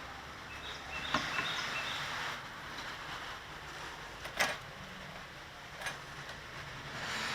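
A few light metallic clicks and knocks, the loudest about four and a half seconds in, from hand tools and rear brake parts being handled while the parking brake cable is taken off the caliper.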